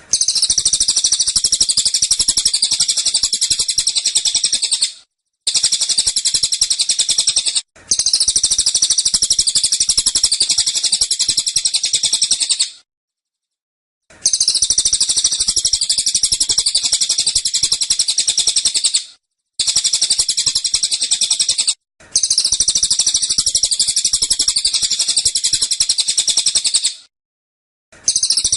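Cililin songbird singing its rapid-fire 'tembakan' song: dense bursts of very fast, high, repeated notes, each lasting about two to five seconds, with short breaks between them. There are about seven such bursts.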